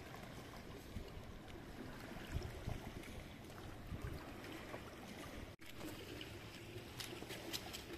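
Faint lakeside ambience: low wind noise and lake water lapping at the shore. Near the end come a few light footsteps on the boards of a wooden footbridge.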